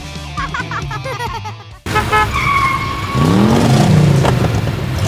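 Background rock music, cut off suddenly about two seconds in by cartoon vehicle sound effects: a short horn toot, then a running vehicle whose low tone rises and falls over and over.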